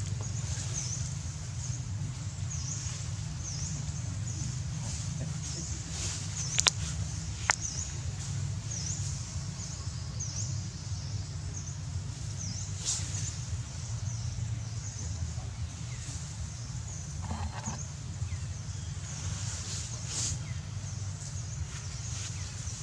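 A short, high animal chirp repeating about once a second over a steady low rumble, with a couple of sharp clicks a third of the way in.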